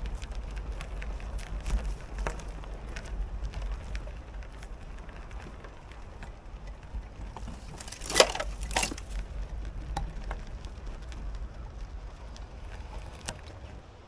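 Bicycle tyres rolling over twigs and gravel on a dirt trail, with irregular crackling and snapping over a low wind rumble on the microphone. Two louder crunching snaps come a little past halfway.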